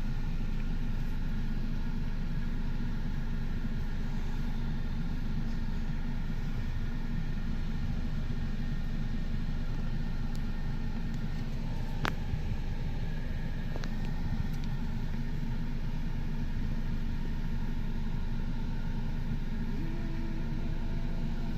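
Steady low rumble of a car driving slowly, heard from inside the cabin, with a single sharp click about twelve seconds in.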